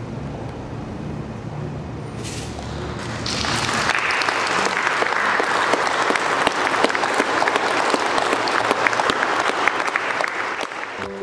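Congregation applauding. It builds in about three seconds in, after a quieter stretch of room sound, and goes on as dense, steady clapping.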